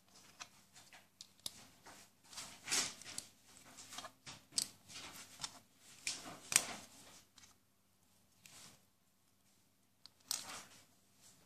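Small plastic Lego and Mega Bloks bricks handled and pressed together: a run of light clicks, rattles and scrapes, a quiet pause of about two seconds, then another cluster of clicks near the end.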